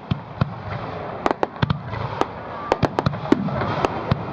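Fireworks display: a fast, irregular series of sharp bangs from bursting shells over a continuous background rumble.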